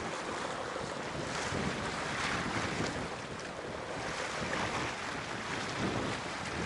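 Wind buffeting the microphone over sea surf washing against rocks, a steady rushing that swells and eases every second or two.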